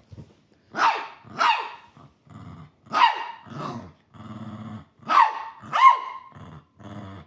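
A dog barking in pairs of sharp barks that fall in pitch, three pairs about two seconds apart, with low growling between them.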